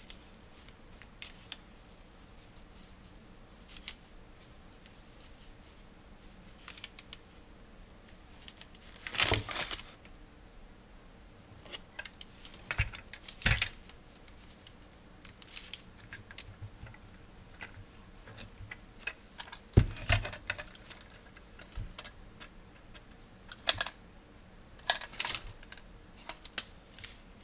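Irregular clicks, taps and rustles of gloved hands handling a plastic battery holder, its wires and connector, and then the plastic housing of a battery air pump, with a few louder bursts of handling noise scattered through.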